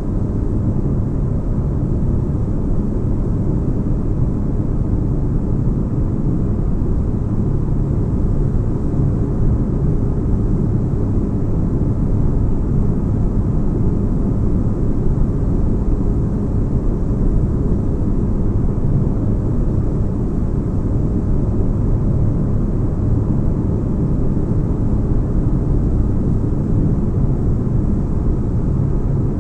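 Steady, deep spaceship-interior ambience: a continuous low rumble and hum, unchanging throughout.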